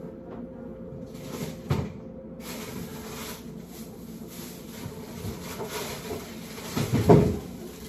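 Kitchen handling sounds as someone rummages low down: a dull thump about two seconds in, a louder knock near the end, and faint handling noise between them.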